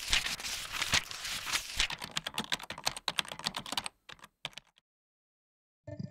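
Typing on a computer keyboard: quick keystrokes that grow sparser and stop about four and a half seconds in.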